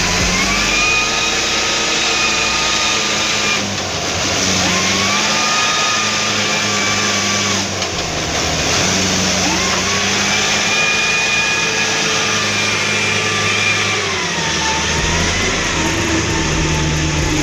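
Mitsubishi Canter truck's diesel engine labouring under a load of oil palm fruit on a muddy track. Its pitch climbs and drops several times as it revs, with short breaks about four and eight seconds in.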